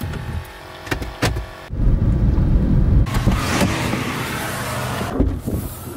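Car cabin sounds: a couple of light clicks as the push-button start is pressed, then from about two seconds in a loud, steady rumble with hiss from the running car, easing off near the end.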